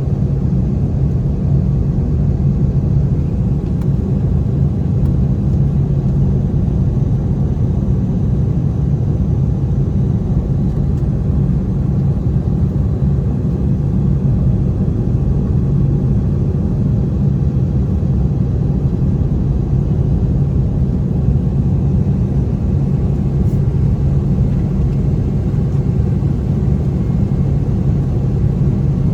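Airbus A320 jet engines running, a steady rumble with a constant low hum.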